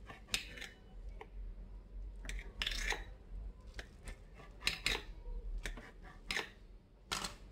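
Scattered light clicks and taps of a knife and fingers on a ceramic plate as an omelette is cut into strips and pushed into a row.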